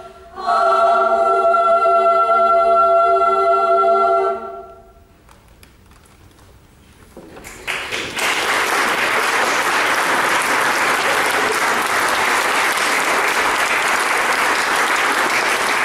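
All-female chamber choir singing a cappella: after a brief break it holds a final chord that stops about four and a half seconds in. After a short hush, audience applause starts and keeps going steadily.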